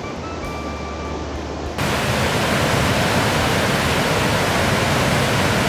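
A few held notes of background music for about the first two seconds, cut off suddenly by the loud, steady rush of a whitewater river tumbling over boulders.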